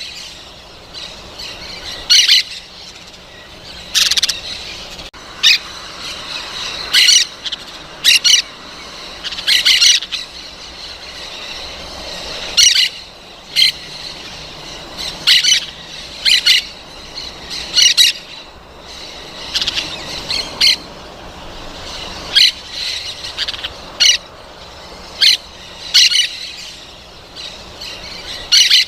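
Parrot calls: short, loud, shrill squawks repeated every second or two.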